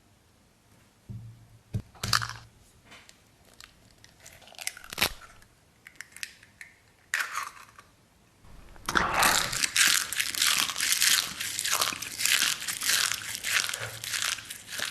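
Close-miked ASMR eating sounds. Scattered small mouth clicks and short bites come first, then from about nine seconds a dense, loud stretch of crunching and chewing.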